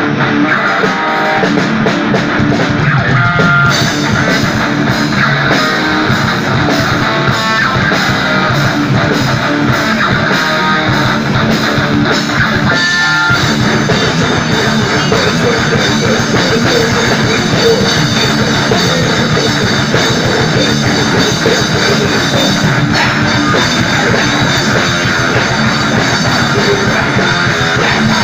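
Live rock band playing: electric guitars and bass over a drum kit, with the cymbals coming in fully about four seconds in.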